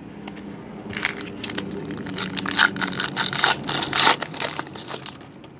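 Crinkling and rustling of a trading card pack and cards being handled, a dense run of crackles that starts about a second in and lasts about four seconds.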